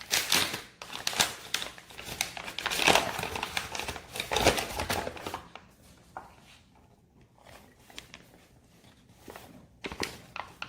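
Rustling and crinkling as flour is poured into a bowl of hot water, with short clicks and knocks, busiest in the first half and quieter after.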